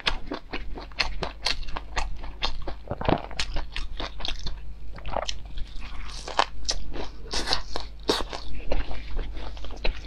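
Deep-fried enoki mushrooms being bitten and chewed: a dense, irregular run of crisp crunches.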